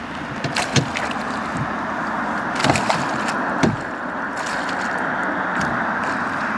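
Steady rushing noise with a few sharp knocks and clicks scattered through it, the loudest a little under a second in and near the middle.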